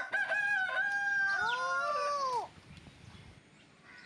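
A rooster crowing once: a loud call of about two and a half seconds, held on one pitch at first, then rising and falling away at the end.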